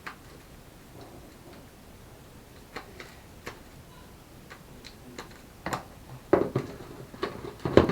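Fluffy slime being kneaded by hand: scattered sticky clicks and small pops, coming thicker and louder in the last two seconds.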